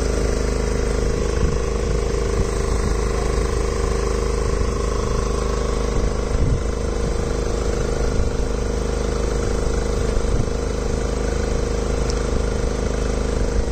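An engine aboard a fishing boat running steadily at idle, a constant low drone with a few faint knocks.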